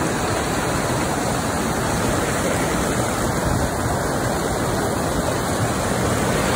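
Fast mountain river rushing over boulders, a steady, loud sound of white water.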